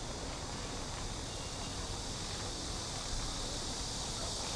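Steady outdoor street ambience: a low background rumble with a continuous high hiss over it, and no single distinct event.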